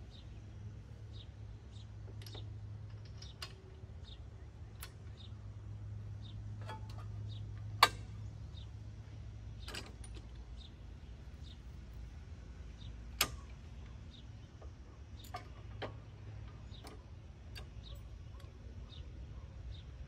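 Scattered metal clinks and clicks of tools and hitch hardware being worked by hand on a compact tractor's rear hitch, with two sharper knocks, one about eight seconds in and one about thirteen seconds in, over a low steady hum.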